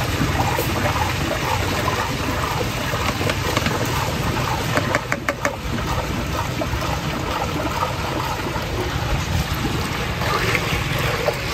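Green Pakola milkshake full of crushed ice being stirred in a large steel pot with a long metal ladle: steady liquid sloshing and churning, with a quick run of four or five clicks about five seconds in.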